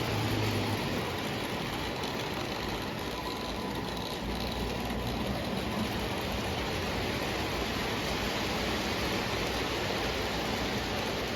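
O gauge model train running on its layout: a steady rolling rumble and hiss of metal wheels on track.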